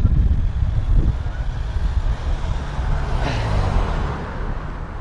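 Wind buffeting the microphone of an action camera on a moving mountain bike: a loud, gusty low rumble, with a rushing noise swelling briefly about three seconds in, from the bike rolling on asphalt.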